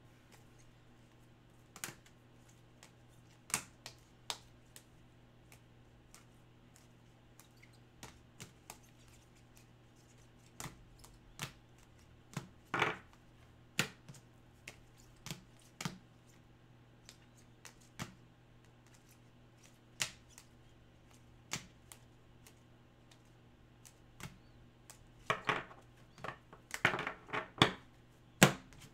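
Trading cards and a plastic toploader handled on a wooden desk: sparse light clicks and taps, thickening into a quick flurry of clicks near the end.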